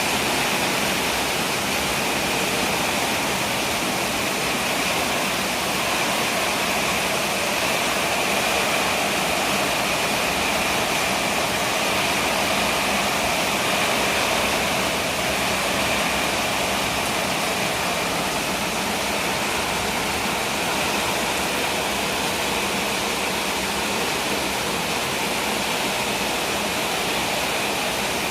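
Heavy downpour of rain, a dense steady hiss that carries on without a break.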